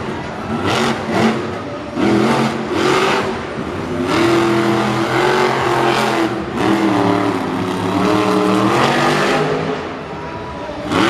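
Monster truck supercharged V8 engines revving hard in stadium racing, the pitch rising and falling again and again, with a sharp rev-up near the end.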